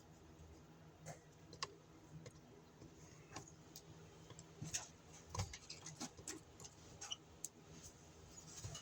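Faint, irregular clicks and light taps of small objects being handled, a few of them bunched together about five seconds in.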